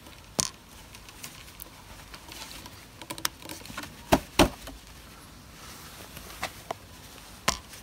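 Scattered light clicks and knocks as a rubber breather plug with O-ring seals is pushed into its hole on top of an air compressor's crankcase. Two louder knocks come in quick succession about four seconds in.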